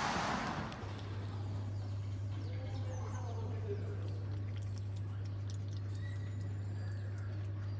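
A young talapoin monkey eating soft persimmon, with faint wet chewing clicks and a few faint high squeaky chirps, over a steady low electrical hum that starts about a second in, after a short rush of noise.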